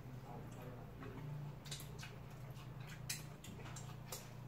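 Quiet eating sounds: scattered lip smacks and small chewing clicks as fried chicken is eaten and fingers are licked, over a faint low steady hum.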